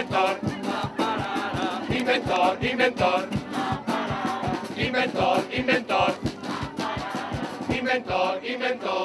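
Carnival chirigota group singing in chorus to Spanish guitars, with a drum striking a steady beat, closing on a held chord near the end.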